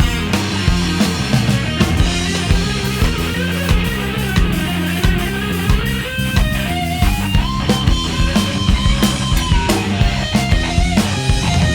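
Live band playing with drum kit, bass and guitar. A lead line of long held notes steps upward about halfway through, holds, then falls back near the end.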